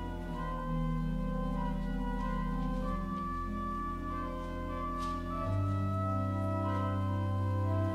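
Church organ playing slow held chords as offertory music. The harmony shifts every couple of seconds, and a deep bass note comes in about five and a half seconds in.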